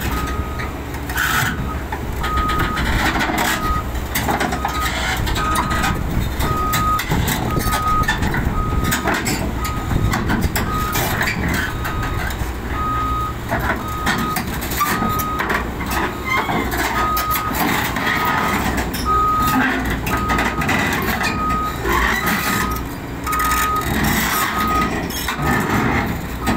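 Caterpillar 320D2 L excavator's travel alarm beeping about once a second as the machine tracks along a lowboy trailer, over the steady running of its diesel engine and the clank of its steel tracks; the beeping stops near the end.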